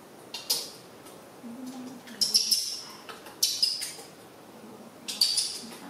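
Four short, high-pitched squeaks from a young animal, coming in separate bursts about a second apart.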